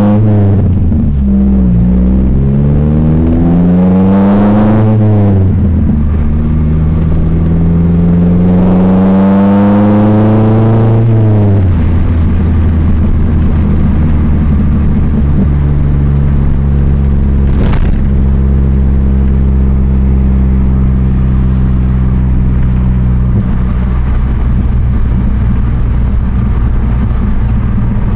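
Four-cylinder engine of a 2000 Chevrolet Cavalier heard from inside the cabin, accelerating through the gears: the pitch climbs and drops back at three upshifts over the first twelve seconds, then holds steady at cruise.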